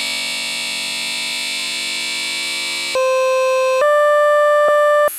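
A sample time-stretched to about 18 minutes in Ableton Live, playing as a dense, sustained drone of many steady tones. About three seconds in it gives way to a cleaner buzzy held tone that steps to a new pitch a few times.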